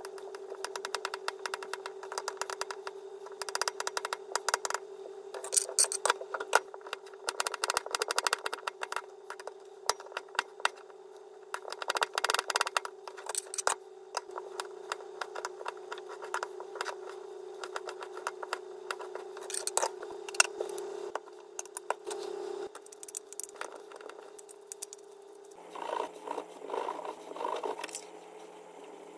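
Kitchen knife chopping boiled egg on a wooden cutting board: a long run of quick taps, thinning out after about fourteen seconds. Near the end a spoon scrapes and stirs salad in a ceramic bowl. A steady hum runs underneath.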